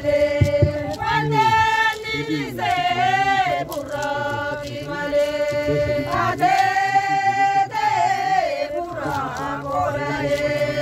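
A group of voices singing a slow, chant-like song in long held notes that bend from one pitch to the next, with a lower sustained part underneath.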